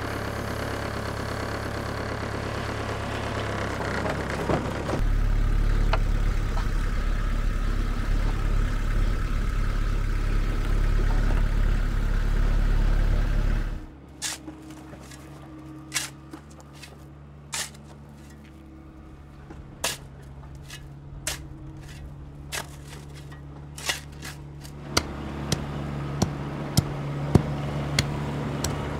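A mini skid steer's engine runs steadily and gets louder about five seconds in. About halfway it drops away, leaving a shovel working in dirt: scattered sharp scrapes and knocks of the spade over a low engine hum.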